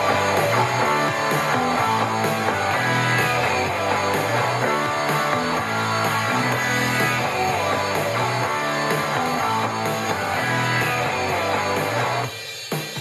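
Guitar-driven music with a steady beat played at full volume through a JBL portable Bluetooth speaker; it drops in level about twelve seconds in.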